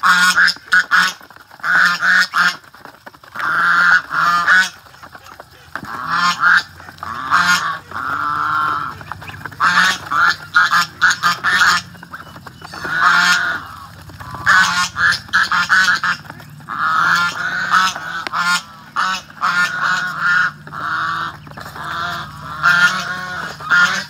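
Domestic ducks feeding together at a trough: repeated loud honking quacks over fast clicking and dabbling of bills in the feed.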